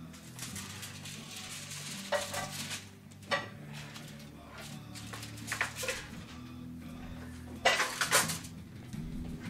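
Kitchen clatter of utensils and a foil-lined metal baking sheet as flatbread pizzas are moved onto a plastic cutting board and the sheet is lifted away: several short clinks and scrapes, the loudest cluster about eight seconds in.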